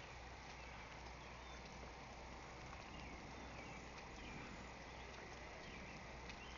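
Faint, steady outdoor ambience after a storm: a low hum and hiss with a few short bird chirps and occasional light clicks.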